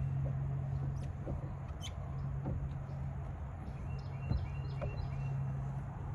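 A bird chirping in a quick run of short high notes about four seconds in, over a steady low hum, with a few faint knocks.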